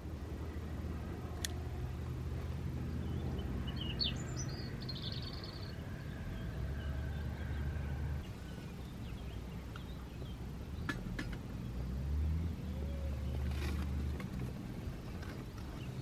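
Outdoor ambience: a steady low rumble, with a short bird chirp about four seconds in and a few faint clicks.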